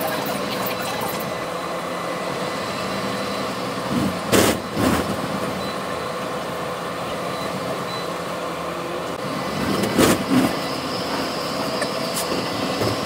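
A Melbourne tram running, heard from inside the car: a steady rumble with a thin steady whine. Two pairs of brief, loud clunks break through, about four and a half seconds in and again about ten seconds in.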